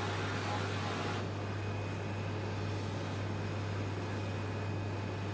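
Steady low hum of running equipment, with a soft hiss that stops about a second in.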